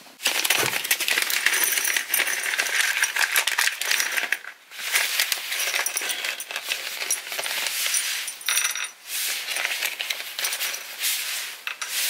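Small metal crimp-on spade connectors clinking and rattling in a plastic packet as they are shaken and picked through, pausing briefly twice.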